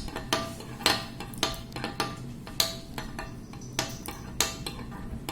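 A utensil clinking and scraping against a bowl as slime is stirred, in irregular knocks a second or so apart.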